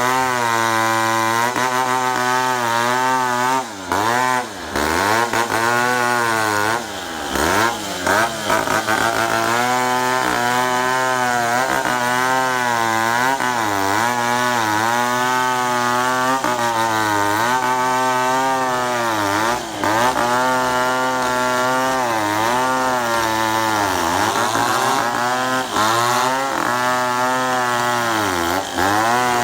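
A chainsaw runs and cuts acacia wood. Its engine pitch repeatedly sags and climbs back as the chain loads up in the cut and frees again, and the sound drops off briefly a few times.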